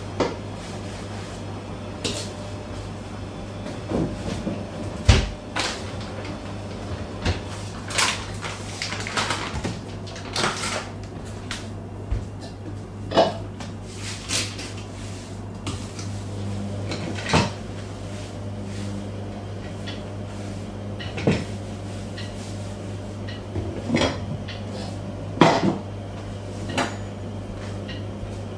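Kitchen items being handled, picked up and set down on a worktop: a string of separate knocks and clinks, one every second or two, over a steady low hum.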